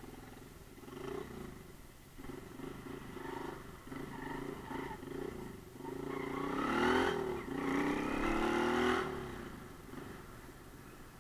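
Romet Ogar Caffe 125 motorcycle's single-cylinder 125 cc engine running under way, then revved up about six seconds in, with a brief dip before a second rising pull, and easing off near the end.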